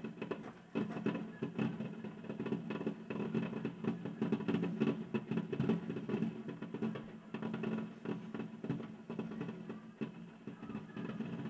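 Fireworks display: a rapid, uneven string of bangs and crackles from bursting shells, with a steady low hum underneath.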